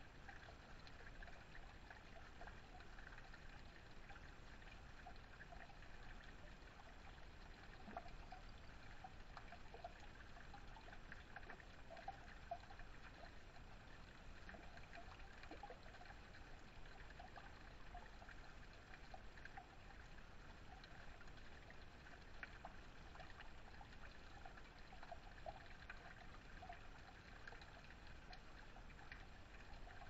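Small backyard waterfall: water trickling steadily off a metal spillway, faint.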